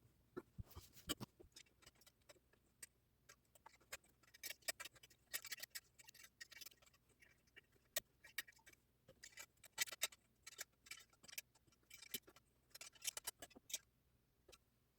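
Faint, irregular clicking in short runs of quick ticks: a worm-drive hose clamp on a diesel heater's exhaust muffler being tightened with a hand tool.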